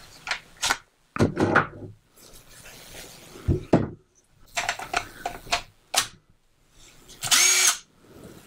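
Plastic clacks and knocks as a DeWalt 20V battery is fitted into a battery adapter on a cordless power tool, then near the end a short burst of the tool's motor spinning up, running on the DeWalt battery through the adapter.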